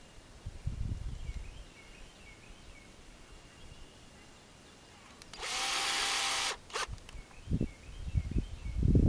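Cordless drill driving a screw into a treated wooden post: the motor runs hard for about a second, then gives one brief second burst. Faint bird chirps and low thumps around it.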